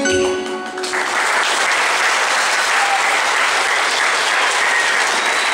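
A song ends on held final notes about a second in, then an audience breaks into steady applause.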